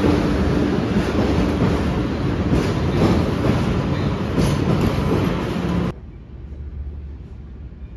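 MBTA Green Line subway train running past along an underground platform: a loud, steady rumble with a few sharp wheel clacks. It cuts off suddenly about six seconds in, leaving a much quieter low background hum.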